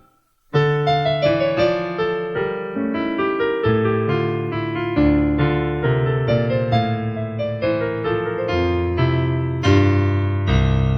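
Casio CTX digital keyboard's AiX piano tone playing a melody over chords and a bass line, starting about half a second in after a brief silence.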